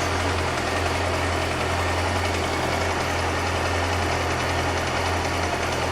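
Yamaha R6 (2007) inline-four engine idling steadily, with a light ticking clatter from the upper right side of the cylinder head that appeared after the bike fell on its right side.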